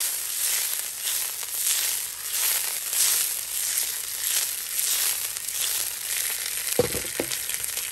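Whole pomfret frying in hot oil in a wok: a steady sizzle that swells and fades as the wok is swirled and the fish slides across it. Two brief knocks near the end.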